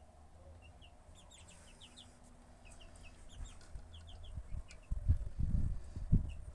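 Young chicks peeping in short, high, scattered calls, several at a time. A few low thumps and rumbles come in the last two seconds and are louder than the peeping.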